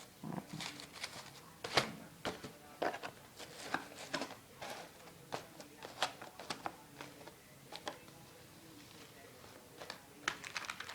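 Packs of fireworks being handled close to the microphone: scattered clicks, taps and rustles of packaging, thinning out for a couple of seconds near the end.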